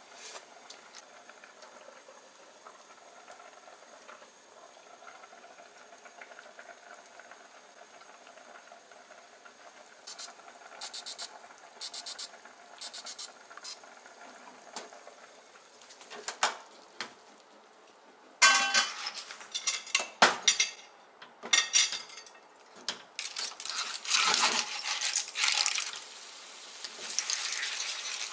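Clams simmering faintly in a stainless steel frying pan, with a few short bursts of rapid clicking about ten seconds in. From about halfway on, metal tongs clink and clatter against the pan as drained spaghetti goes in and sizzles.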